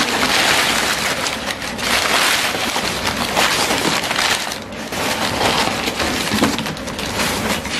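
Crumpled packing paper crinkling and rustling as hands rummage through it inside a cardboard box: a dense, continuous crackle that eases briefly about halfway through.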